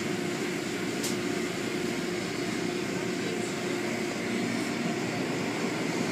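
Car wash equipment running steadily: a continuous noisy hum with a low steady tone in it.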